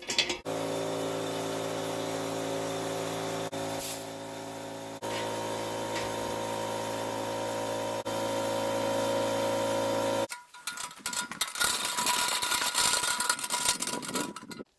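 John Deere 317 lawn tractor's twin-cylinder engine running steadily, then cutting off abruptly about ten seconds in. Irregular clattering and handling noises follow.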